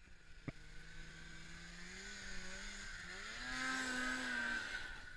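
Snowmobile engine running and revving up as the sled climbs a snow slope, its pitch rising about three seconds in and loudest near four seconds before fading. A sharp click about half a second in.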